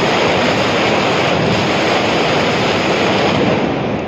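Mascletà: gunpowder firecrackers and aerial shots going off in such rapid succession that the bangs merge into one continuous loud noise, with no single report standing out.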